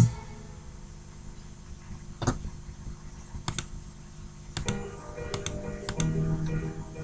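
Loud background pop music cuts off at the start, followed by quiet music with faint held notes and scattered sharp clicks, the notes growing louder near the end.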